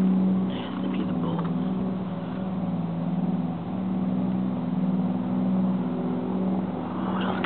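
A steady, low, pitched mechanical drone with several overtones, swelling and fading gently every second or two. It is an unexplained strange noise heard on a railway station platform.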